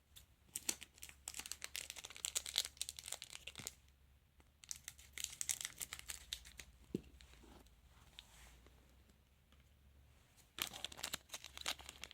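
A trading-card packet wrapper being crinkled and torn open by hand, in three crackly bouts with short pauses between them.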